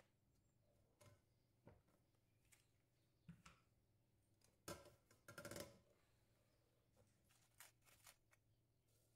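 Near silence with faint handling sounds: scattered light clicks and taps, and a short crinkly rustle about five seconds in, as a paper sachet is opened and handled over a stainless-steel mixing bowl.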